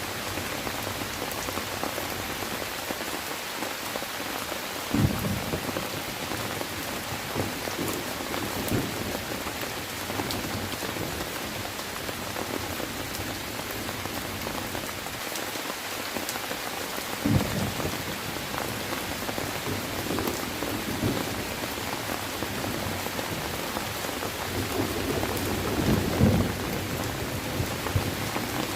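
Steady rain falling, with a few short low rumbles of thunder: one about five seconds in, one past the middle, and the strongest near the end.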